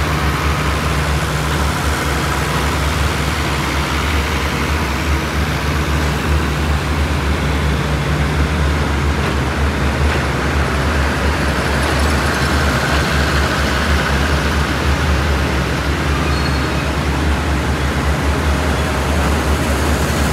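Steady low drone of a railway diesel engine running while passenger carriages are shunted slowly past.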